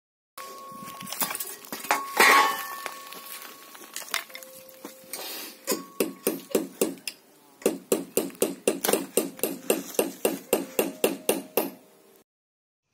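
Hammer nailing boards: scattered knocks and clinks at first, then a fast, even run of blows, about four a second, each with a short metallic ring.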